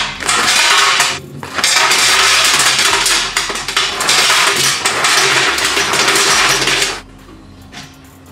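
Harsh, loud scraping hiss of a power tool working on metal. It starts abruptly, breaks off briefly about a second in, and stops after about seven seconds.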